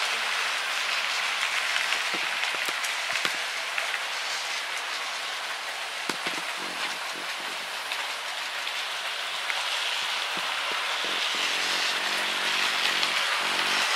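OO gauge Hornby model trains running on the layout's track: a steady rushing hiss of wheels and motors with scattered clicks over rail joints. A low hum comes in briefly after about six seconds and again over the last few seconds as a Class 67 locomotive passes close.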